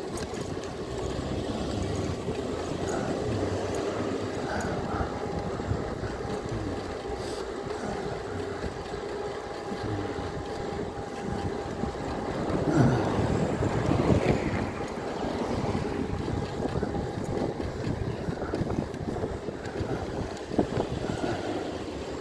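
Wind rushing over the microphone and road noise from a moving e-bike. An oncoming car passes about thirteen seconds in, swelling and fading.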